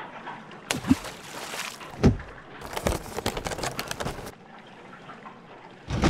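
Water splashing as a plastic toy octopus is dropped into a small plastic container of water, with a sharper splash about two seconds in, followed by a quick run of clicks as the plastic lid is snapped shut.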